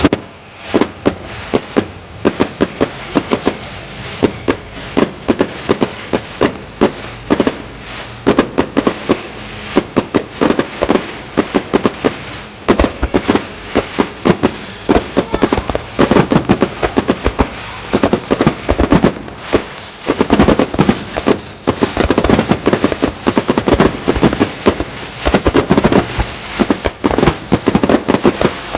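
Aerial fireworks going off in a rapid barrage: many loud, sharp bangs a second with echoing rumble between them, growing denser about two-thirds of the way through.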